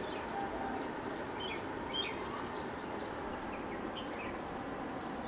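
Small birds chirping: short, high calls scattered over a steady outdoor hiss, the loudest chirp about two seconds in.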